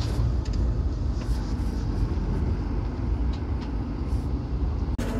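Passenger train running along the track, heard from inside the coach: a steady low rumble with faint light clicks now and then. It cuts off abruptly near the end.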